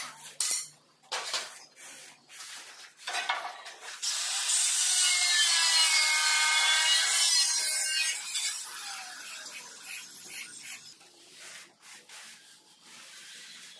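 Aluminium straight-edge screed bar dragged back and forth across a sand-cement mortar bed, a loud gritty scrape lasting about four seconds in the middle. Shorter scrapes and knocks come before and after it.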